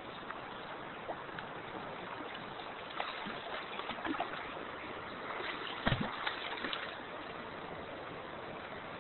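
Steady rush of fast river current. A few short knocks and clicks come between about three and seven seconds in, the loudest a thump near six seconds.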